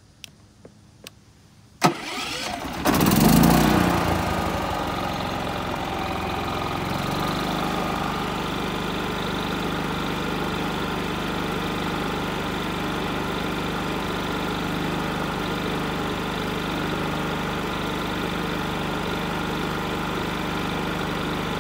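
Westinghouse iGen4500 inverter generator started by push button: a few light clicks, a short crank, then the engine catches about three seconds in, surges loudly and settles to a steady run about seven seconds in.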